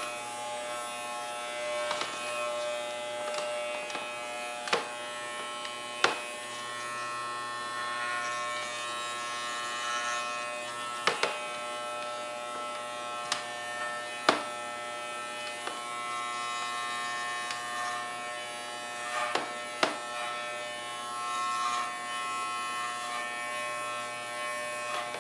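Wahl Pet Clipper Basic Series (model 9160-210) running with a steady electric buzz as it clips a small dog's coat. Sharp clicks come now and then, louder than the buzz.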